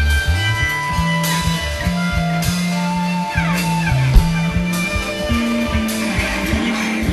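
Live rock band playing: electric guitar over bass and drum kit. A little past halfway the guitar slides down in pitch.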